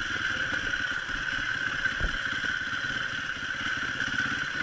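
Enduro motorcycle engine running steadily at trail speed, heard up close from the rider's helmet, with a steady high whine over it and a single knock about two seconds in.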